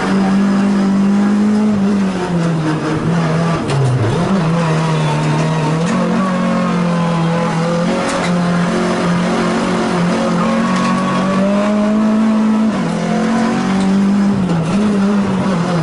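Renault Clio Cup race car's four-cylinder engine heard from inside the stripped cabin, running hard with the revs rising and falling several times as the car accelerates and slows through the course.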